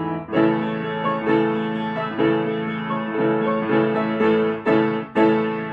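Upright piano played with repeated full chords, struck about once a second. The last chord comes about five seconds in and is left ringing as the piece closes.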